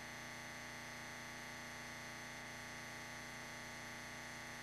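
Steady electrical hum and buzz over a hiss, a set of fixed tones that hold without change.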